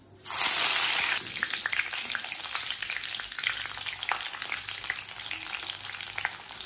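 Curry leaves and crushed garlic frying in hot oil in a wire strainer: a sudden loud burst of sizzling as they go into the oil just after the start, settling after about a second into a steady sizzle with many small pops.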